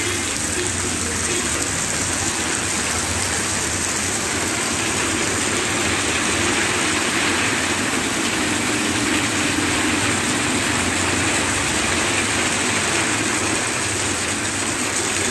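Steady rushing of floodwater with a vehicle engine running underneath.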